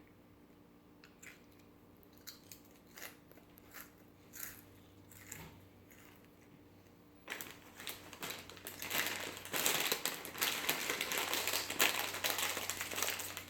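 Scattered crisp crunches of potato chips being bitten and chewed. About seven seconds in, a plastic chip bag starts crinkling loudly and continuously as it is handled and opened.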